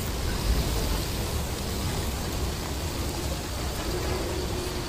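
Steady hiss of heavy rain falling on floodwater, with a low rumble underneath.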